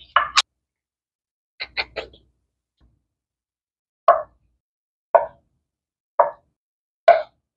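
A knife slicing through a block of canned luncheon meat and knocking on a wooden cutting board, one short soft knock about every second from about four seconds in. Near the start, a few sharp clicks and taps as the freshly opened metal can is handled.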